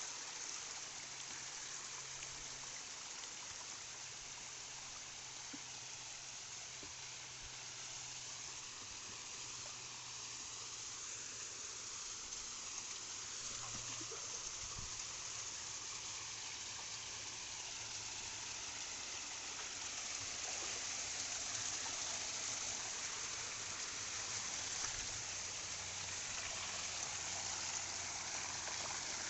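Water from a small waterfall rushing and splashing steadily, a little louder in the last third.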